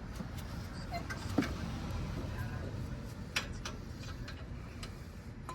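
Scattered, irregular light clicks and knocks of hand tools and metal brake parts being handled, over a steady low rumble; the sharpest knocks come about a second and a half in and about three and a half seconds in.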